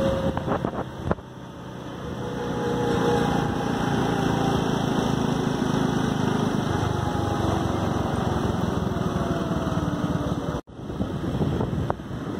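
Motorcycle engine running while riding, its pitch drifting up and down with the throttle, under a haze of wind rush. The sound cuts out for an instant near the end.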